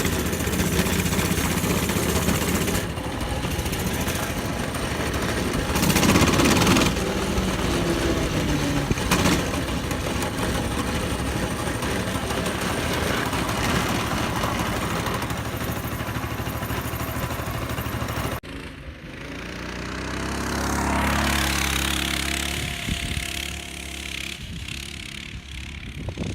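Small single-cylinder engine of a Coleman mini bike (the stock 6.5 horsepower engine) running with a rattly, even beat. About three quarters of the way through the sound changes suddenly, then swells and fades as it passes.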